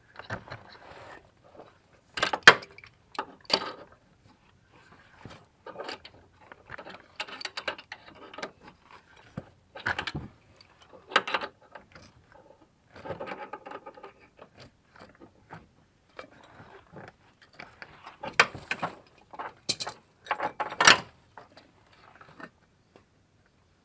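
Hand tools clinking, scraping and knocking against the A/C compressor clutch of a GM minivan, in irregular bursts with a few sharp metal knocks about two seconds in and again near the end.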